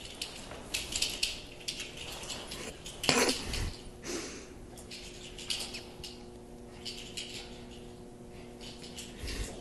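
Light metallic jingling in short, irregular bursts from a small dog's tags as it runs, with a soft thump about three seconds in. A faint steady hum comes in about halfway.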